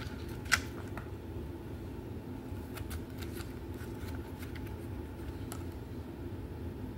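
Paper inserts of a Blu-ray case being handled: one sharp snap of card about half a second in, then a few faint rustles and ticks. A steady low room hum lies under it.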